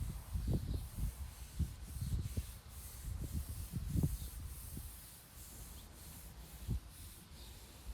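Repeated rubbing strokes across a body-filler patch on a fiberglass wall, with low thumps mixed in; the strokes are busiest in the first four seconds and grow quieter about five seconds in.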